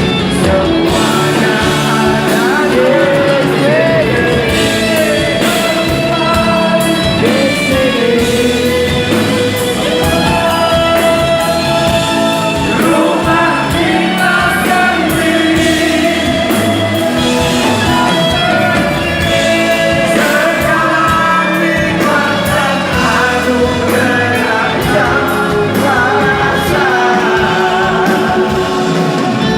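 Rock band playing a song with a voice singing the melody over it, loud and continuous.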